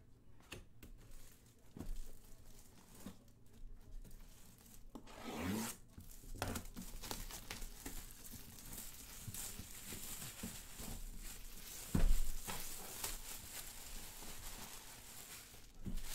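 A cardboard helmet box being opened: packing tearing and plastic wrapping crinkling as the contents come out. One loud thump comes about three-quarters of the way through.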